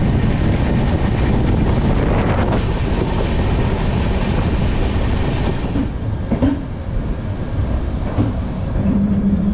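Express train coaches running on the track: a steady rumble and rattle of wheels on rail. About six seconds in it turns quieter, with a few short squeals as the train draws into the terminus, and a steady low hum comes in near the end.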